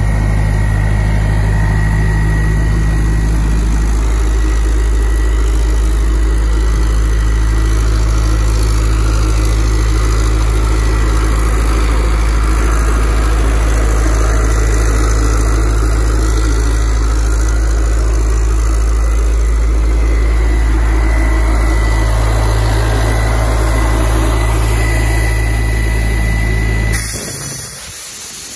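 Doosan 7/71 towable diesel air compressor running steadily: a deep, even engine hum with a thin steady whine above it. About a second and a half before the end the engine sound falls away and a hiss of compressed air begins as an outlet ball valve is opened.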